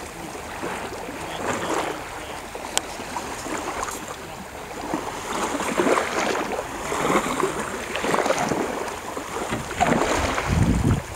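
Shallow water sloshing and splashing as people wade beside a small sailboat's hull, in irregular surges with a few small knocks. Wind rumbles on the microphone near the end.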